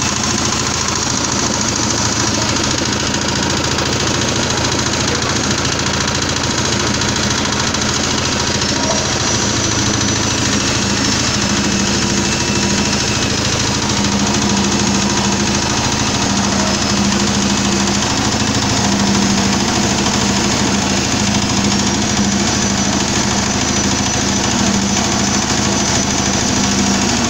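Mini screw press for palm oil running steadily under load, its screw and drive pressing palm fruit mash, with a dense, even mechanical clatter.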